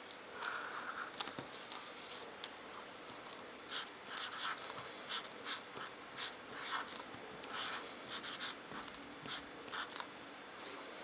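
Black marker pen writing letters on paper: short, quick scratchy strokes one after another, with a sharp tap about a second in.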